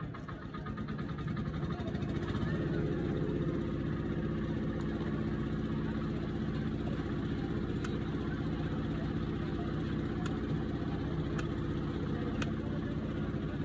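An engine running steadily, growing louder over the first two seconds and then holding an even hum. A few sharp knocks of a knife striking a wooden chopping block come in the second half.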